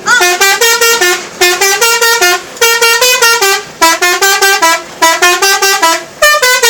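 Indonesian 'telolet' multi-tone bus horn playing a tune: short phrases of quick, stepping notes, about six phrases separated by brief pauses.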